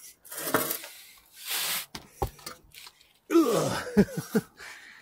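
A man grunting and groaning with effort about three and a half seconds in while forcing a new exhaust pipe into place under a car, after a few short scrapes and a knock from the metal pipe.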